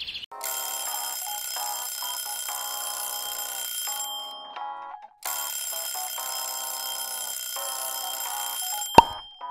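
Alarm ringing: a quick run of changing notes over a steady high tone, in two spells of about four seconds with a one-second break. A single sharp knock comes near the end.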